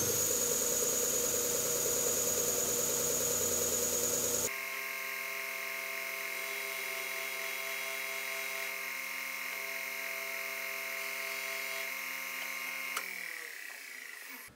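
Combination belt and disc sander motor running with a steady high whine while the end of a wooden tray's rabbet is held against the spinning sanding disc; the sound changes abruptly about four and a half seconds in. Near the end it is switched off with a click and starts to wind down.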